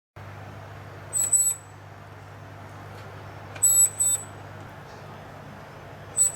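Autofocus motor of a Nikon AF-S Nikkor 28-70mm f/2.8D lens giving four short high-pitched squeals as it drives focus, over a steady low hum. The squeal is an abnormal motor noise, the sign of autofocus motor trouble.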